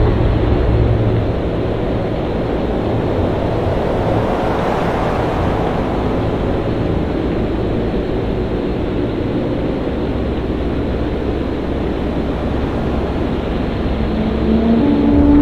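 Storm at sea: steady wind and surging waves, swelling about four to five seconds in. A low steady tone comes in near the end.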